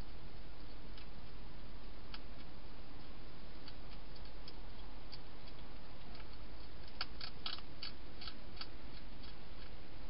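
A hedgehog crunching dry food inside a plastic feeding box: scattered sharp clicks, coming faster in a cluster about seven to eight and a half seconds in, over a steady hiss.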